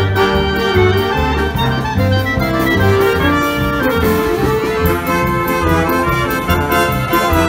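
Wind band playing, with a clarinet soloist in front and brass behind, over a steady beat in the bass.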